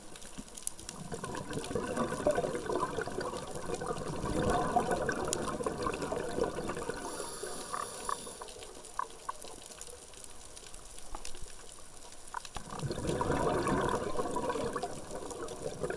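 Scuba diver breathing through a regulator underwater: a short hissing inhale, and two long gurgling rushes of exhaled bubbles.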